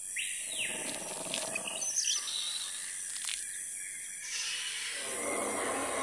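Jungle ambience sound effects: bird calls and chirps over a steady hiss, with a fuller, lower sound coming in about five seconds in.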